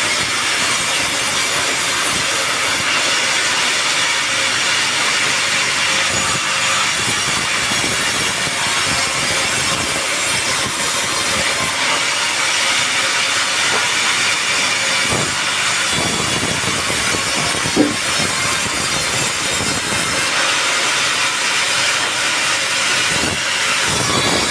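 Sawmill band saw cutting through a teak log, a steady high hissing whine of blade in wood, with one short sharp click about three-quarters of the way through.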